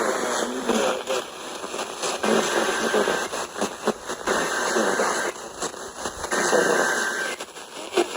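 Three short bursts of EAS header data tones over an FM radio broadcast, each about a second long with about a second between them, half-buried in hiss and garbled sound from weak reception.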